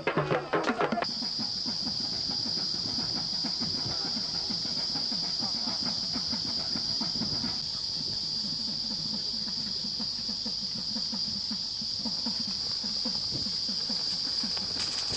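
Insects buzzing in a steady, unbroken high-pitched drone. Drum-like percussion music cuts off about a second in, just as the buzzing begins.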